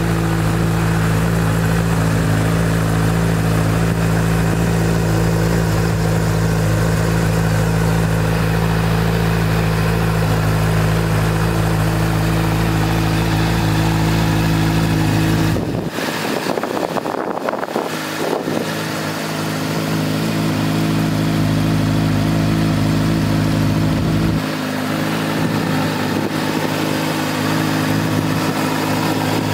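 A 2011 Honda CBR600F's inline-four engine idles steadily through an aftermarket Leo Vince exhaust. The deep rumble thins out for a couple of seconds about halfway through, and again near the end.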